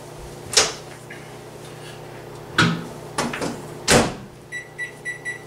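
Over-the-range microwave oven: three sharp clicks and knocks as its door is opened, a dish goes in and the door is shut, then several quick electronic keypad beeps near the end as the cooking time is entered.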